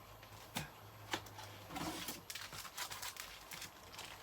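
Vinyl records in their sleeves being handled out of a delivery box: a few light knocks and taps with rustling of card and plastic, over a faint low hum.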